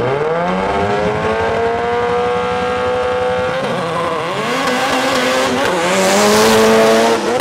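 Two turbocharged drag cars, a Fiat Bravo turbo 4x4 and a twin-VR6 turbo VW Golf, launch off the line and run hard at full throttle. The engine pitch climbs and holds high, breaks for a gear change about three and a half seconds in, then rises again. The cars are loudest as they pass close near the end.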